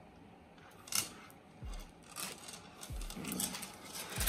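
Leather bucket bag with a metal chain strap being handled and turned over: rubbing and rustling, a sharp click about a second in, and a few dull thumps.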